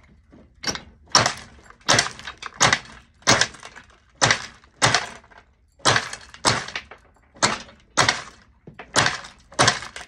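Glass cane being chopped into murrini slices on a chopping machine: a quick run of sharp cracks, roughly two a second and a little uneven, each as the blade snaps off another slice of glass.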